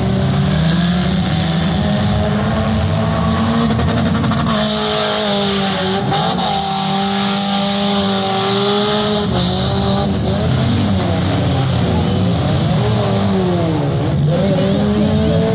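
Several demolition derby cars' engines revving, their pitch rising and falling over one another, over a steady high hiss.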